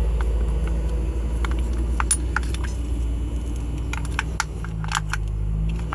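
Small metallic clicks and clinks of deadbolt lock parts being handled and fitted together, scattered irregularly, over a steady low rumble.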